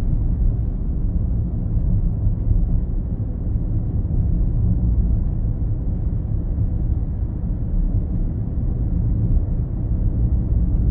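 Steady low rumble of road and tyre noise inside the cabin of a 2025 Chevrolet Silverado EV as it climbs a long, steep hill under power.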